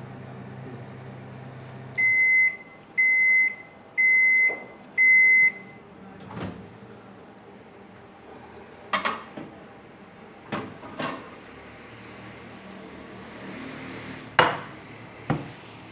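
Microwave oven humming on high, stopping about two seconds in, then four beeps about a second apart signalling the end of its cycle. Scattered clicks and knocks follow as the door is opened and the dish is handled.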